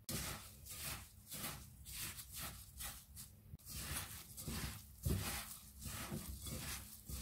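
A hand in a thin plastic glove squeezing and kneading a moist mix of grated apple, ground biscuit and ground walnut in a glass bowl, in repeated short strokes about two or three a second.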